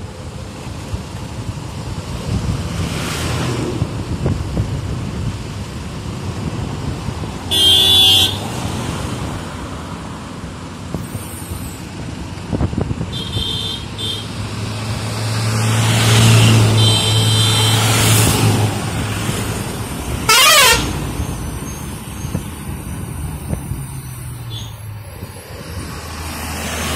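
Road traffic heard from a moving motorbike: steady engine and road noise with vehicle horns sounding over it. A loud horn blast comes about a third of the way in, shorter honks follow around the middle, and a warbling horn sounds about three-quarters through, while a heavy engine drone swells and fades in the middle.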